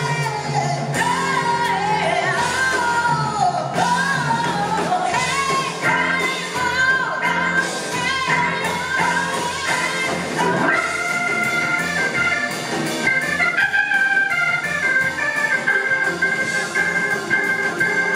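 Live rock-and-roll band playing: a woman sings lead over electric guitars, drums and keyboard. About halfway through, the wavering vocal line gives way to long, steady held chords.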